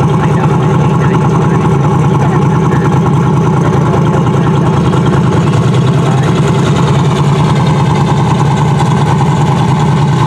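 Single-turbo 8.2-deck small-block Ford V8 in a 1994 Mustang GT idling loudly and steadily.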